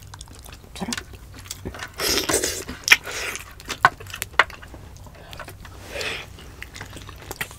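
Close-miked eating sounds of two people eating stew and fish by hand: mouth noises with many short sharp clicks. There is a longer noisy smacking stretch about two seconds in and a shorter one about six seconds in.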